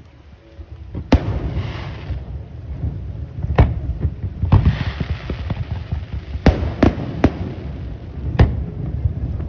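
Aerial fireworks going off: about seven sharp bangs at uneven intervals, several of them followed by a crackling shower lasting about a second. A steady low rumble runs underneath.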